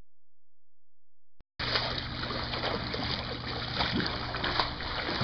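Pool water splashing and sloshing as a child swims, starting suddenly about a second and a half in after silence, over a low steady hum.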